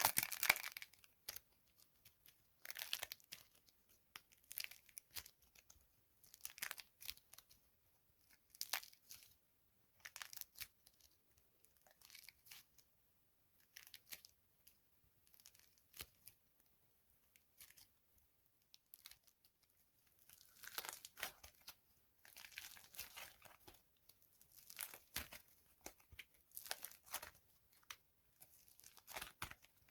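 Dry soap being crushed, crunching and crumbling in crackly bursts about every two seconds. The sharpest crunch comes right at the start, with fewer bursts in the middle and a busier run near the end.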